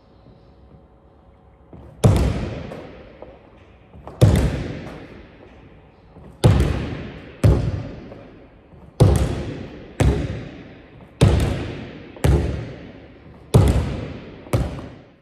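Basketball bounce passes against a wall: about ten sharp hits as the ball strikes the wooden gym floor and the wall, mostly in pairs about a second apart, starting about two seconds in. Each hit echoes in the large hall.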